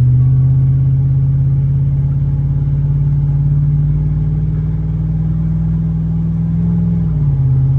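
Chevrolet Silverado crew cab's gasoline V8 accelerating at about half throttle, heard from inside the cab, running on new spark plug wires. The engine note climbs slowly and evenly, then drops sharply about seven seconds in as the transmission shifts up.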